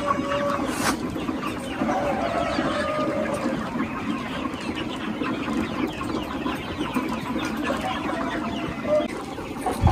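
A large flock of young chickens, about 40 days old, clucking and cheeping together: a steady overlapping chatter of many birds with a few clearer single calls standing out.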